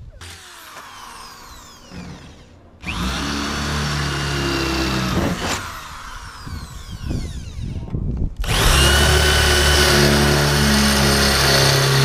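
Corded electric drill boring holes through the roof of a VW Kombi. It runs twice: a couple of seconds about three seconds in, then a louder, longer run from about eight and a half seconds in.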